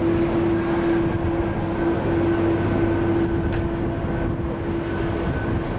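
Air China Airbus A330's twin jet engines running at low thrust as the airliner rolls along the runway: a steady rushing noise with a constant droning tone.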